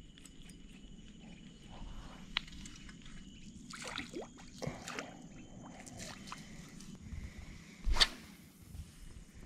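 Quiet lakeside ambience with a faint steady high-pitched hum, small clicks and handling noises from a fishing rod and spinning reel, and one sharp click about eight seconds in.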